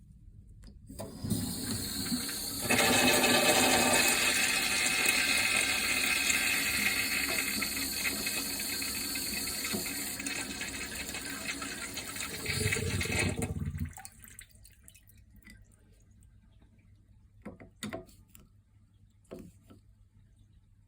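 Urinal flush valve flushing: water rushes into the bowl, swelling louder after a couple of seconds, then cuts off abruptly about thirteen seconds in as the valve closes, the sign that it now shuts off instead of running on. A few faint clicks follow.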